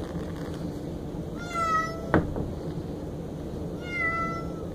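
A domestic cat frightened by a thunderstorm gives two plaintive meows about two seconds apart. A sharp click comes just after the first meow.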